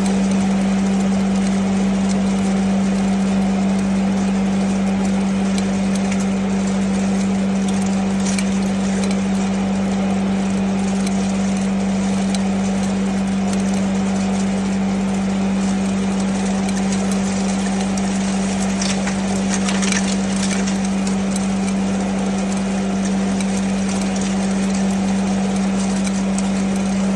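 Zinc grinding machine running steadily as it grinds material to powder: a strong, even hum over a rough grinding hiss. Brief sharper crackles come about two-thirds of the way through.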